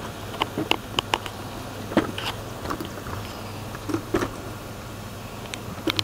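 Camera handling noise: scattered light clicks and knocks as a camcorder is moved and set on a tripod, over a steady low hum.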